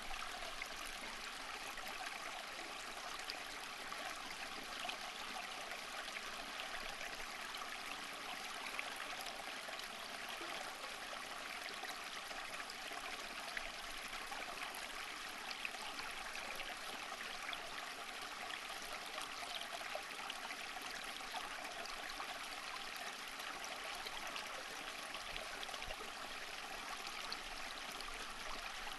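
Water flowing steadily in a stream, with an even splashing and trickling rush.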